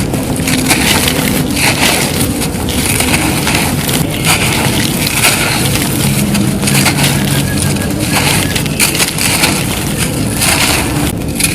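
Dry, dusty white concrete being crushed and crumbled by hand, a continuous crunching with many irregular crackles.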